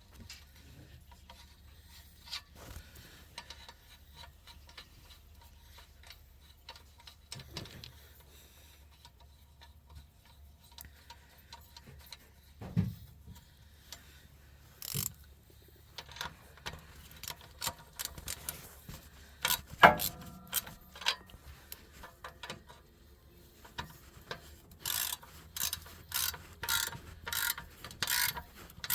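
Ratchet wrench clicking in short runs while tightening the nuts of an exhaust pipe clamp, with scattered knocks and clinks of tools on metal. A quick, even run of ratchet clicks starts near the end.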